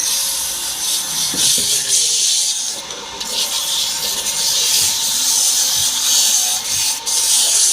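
Something rubbing or sanding against a wooden cot leg: a steady, scratchy hiss that swells and fades, dipping briefly about three seconds in.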